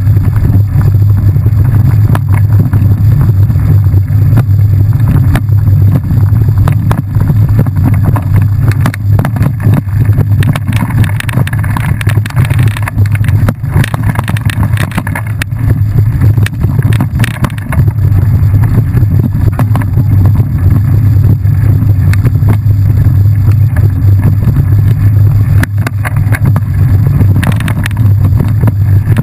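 Heavy wind buffeting on a ride-mounted camera's microphone, a steady low rumble, with frequent clicks and knocks as the ride jolts over a bumpy forest dirt trail.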